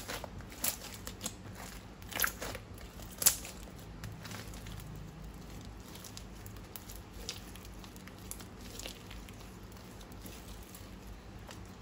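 Slime being squeezed and kneaded by hand, giving sharp crackling clicks several times in the first few seconds, then fainter scattered crackles.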